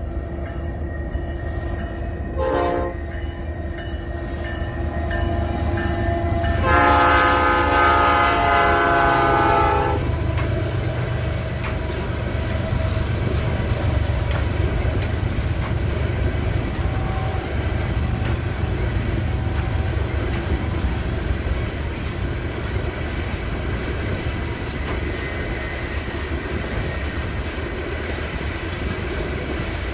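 Diesel locomotive air horn in a rail yard: a short toot about two and a half seconds in, then a louder multi-tone blast held for about three seconds. A steady low rumble of the yard runs underneath.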